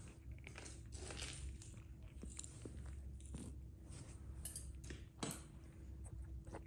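Kittens crunching dry kibble: faint, irregular small crunches and clicks of chewing, with one louder crunch about five seconds in.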